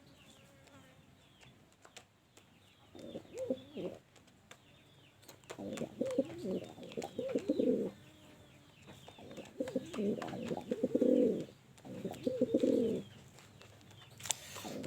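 Male homing pigeon cooing in courtship: a series of low, rolling coo phrases, each lasting a second or two, with short pauses between. Faint short high chirps run underneath.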